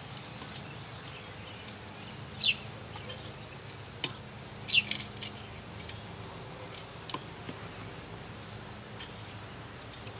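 A bird gives a short falling chirp twice, about two and a half and five seconds in, over small scattered clicks from an electrical wiring connector being worked onto the back of an LED pod light.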